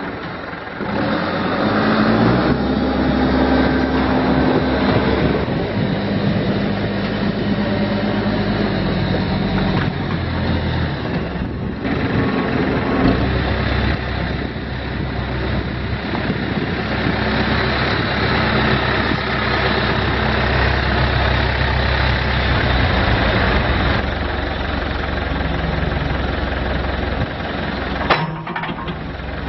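Diesel engine of a 2004 Case 580M Series 2 backhoe loader running, its pitch rising and falling several times as the engine speed changes. It drops out briefly near the end.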